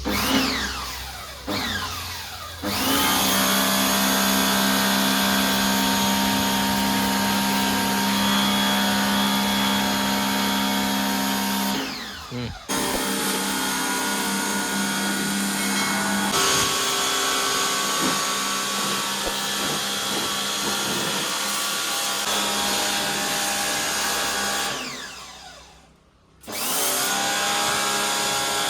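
Agaro 135-bar electric pressure washer's motor running with the hiss of its water jet while the spray gun trigger is held. The motor only runs while the trigger is squeezed, so it stops and restarts: two short spin-downs in the first seconds, a brief cut-out about twelve seconds in, and a falling wind-down a couple of seconds before the end before it starts again.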